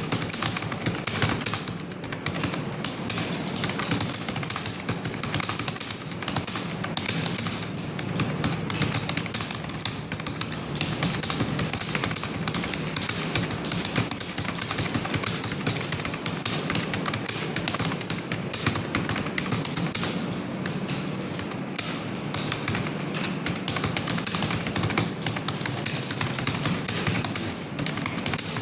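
Continuous fast typing on a computer keyboard: a dense, unbroken run of keystroke clicks, many a second.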